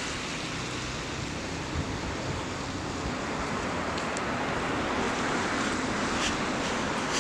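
Steady rushing outdoor noise, with a few faint ticks in the second half.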